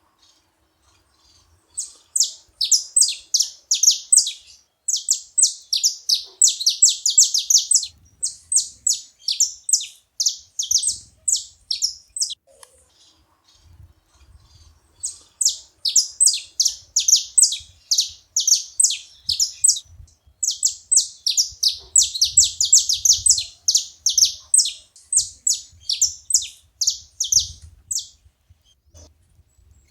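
Saffron finches singing: fast runs of high, sharp, downslurred notes. The song comes in two long bouts with a pause of about three seconds between them.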